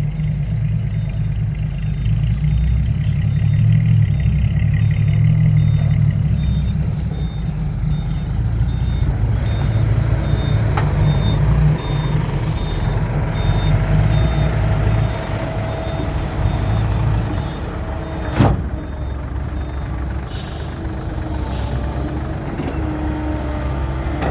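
Diesel dump truck engine running heavily while the truck maneuvers, with a reversing alarm beeping over it for the first half. There is one sharp air-brake release about 18 seconds in.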